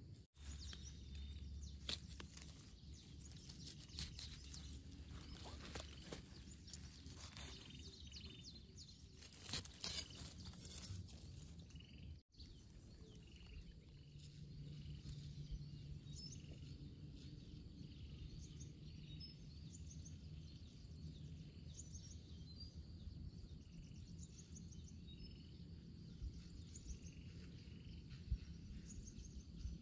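Faint outdoor ambience with small birds chirping. In the first half, scattered sharp knocks and handling noises; after about twelve seconds, a steady low hum.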